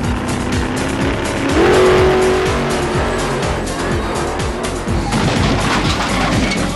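A car engine running hard and revving up about one and a half seconds in, over background music with a steady beat.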